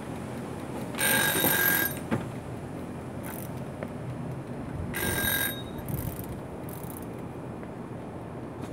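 A food timer ringing twice with a bright, bell-like ring. The first ring starts about a second in and lasts nearly a second; a second, shorter ring comes about four seconds later.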